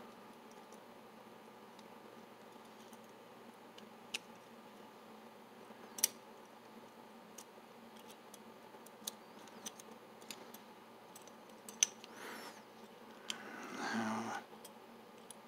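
Small metal lock parts clicking and scraping against each other as a cylindrical lever-lock chassis is fitted back together by hand with a flathead screwdriver: a few sharp, separate clicks, then a longer, louder stretch of scraping about fourteen seconds in.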